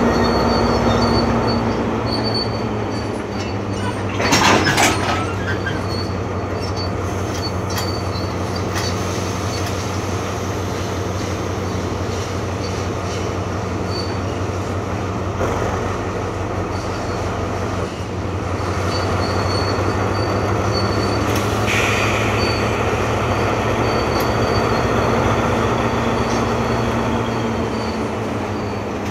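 Loaded stone hopper wagons rolling slowly during shunting, over the steady drone of the Alsthom ALS 4150 diesel locomotive's MTU engine. A loud, brief metallic noise comes about four seconds in.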